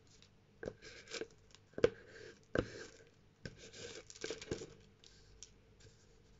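Paper being handled at a craft table: rustling and scraping, with several light taps against the tabletop in the first half.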